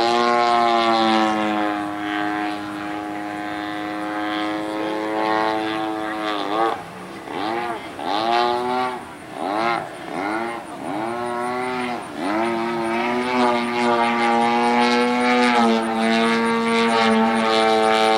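Desert Aircraft DA-120 twin-cylinder two-stroke petrol engine of a giant-scale Extra 300 radio-control model in flight, rising in pitch at the start and then holding steady. From about six seconds in its pitch and loudness dip and swell about seven times in quick succession, then it settles into a steady, slightly higher drone toward the end.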